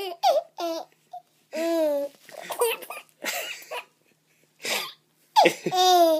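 Six-month-old baby laughing in separate bursts of squeals and giggles, the longest near the end.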